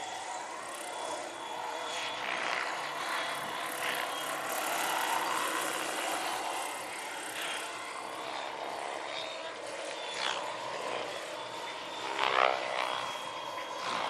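Large electric scale RC AH-1 Cobra helicopter in flight: rotor blade whoosh with a steady electric motor whine, swelling and fading as it manoeuvres. A brief, louder pitched sound comes about twelve seconds in.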